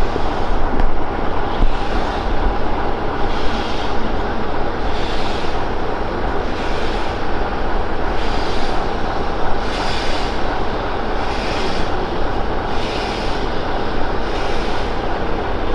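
Steam tank locomotive working slowly into the station: regular hissing exhaust beats about every one and a half seconds over a steady low rumble.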